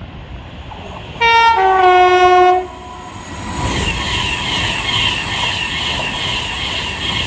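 A British train's two-tone horn sounds once, a short high note followed by a longer low note. The train then runs past with a steady rumble and an even repeating rattle.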